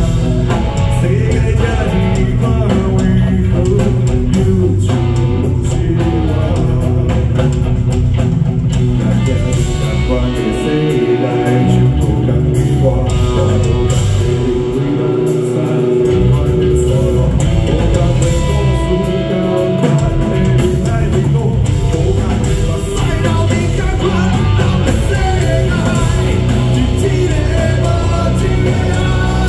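Rock song playing: electric guitar and drum kit with singing over them.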